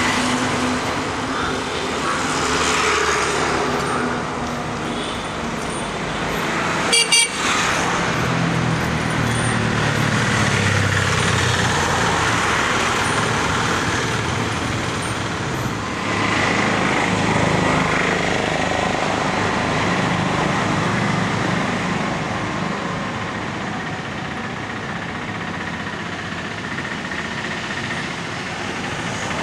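Road traffic with motorbikes and scooters passing, the noise swelling and fading as they go by, and one brief sharp sound about seven seconds in.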